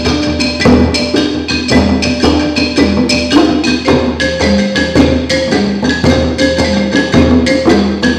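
Djembe hand drums and wooden bar xylophones, one of them a large bass xylophone, played together as a percussion ensemble. They keep a steady, even rhythm of drum strokes under pitched mallet notes.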